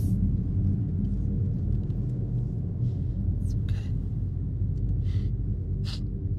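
Steady low rumbling drone from a film soundtrack, with a few faint short hisses in the second half.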